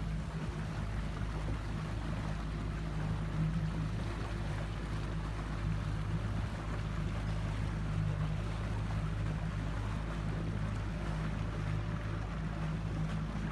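A motorboat engine running at a steady speed with a low, even drone, mixed with wind and water noise.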